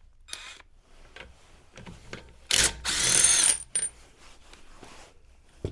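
Cordless power tool with a socket runs in one loud burst of a little over a second about halfway through, its whine rising slightly, spinning a wheel bolt out of a Porsche Boxster's front wheel. Light clicks of the tool on the bolt come before it, and there is a sharp knock near the end.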